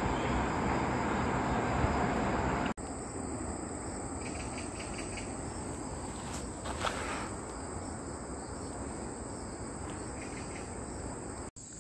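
Distant road traffic noise for the first few seconds. Then, after a sudden cut, crickets and other insects chirp steadily, with a few short pulsed trills.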